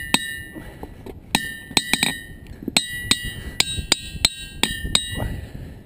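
A hammer striking a diabase boulder about a dozen times, some blows in quick clusters. Each blow gives a bell-like ring of several high, steady tones that hang on between strikes.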